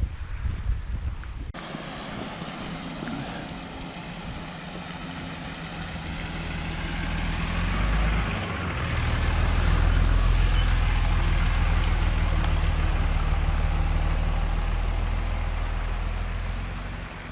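A motor vehicle's engine rumbling close by, growing louder around the middle, holding steady, then dropping off near the end.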